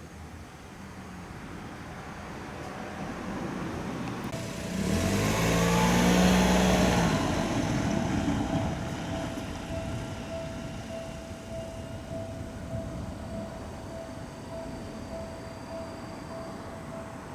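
A train passes over a railway level crossing. Its engine and wheel noise builds, is loudest about five to eight seconds in, then fades. From about four seconds in, a repeating tone, the crossing's warning bell, rings steadily, about twice a second.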